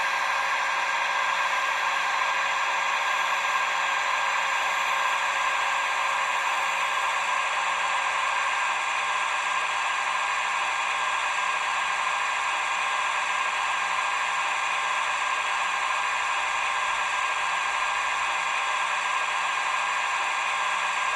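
Roco H0-scale EDK 750 model railway crane running with a steady mechanical whir while its boom swings round, the sound of its small drive and digital sound unit; the tone thins slightly about eight seconds in.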